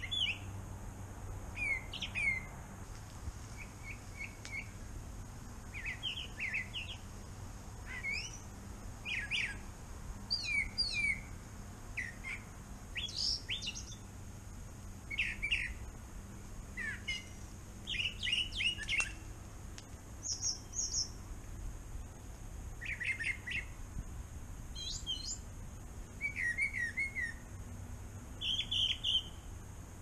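A songbird singing a long run of short whistled phrases, one every second or two, each different from the last, some made of quick repeated notes.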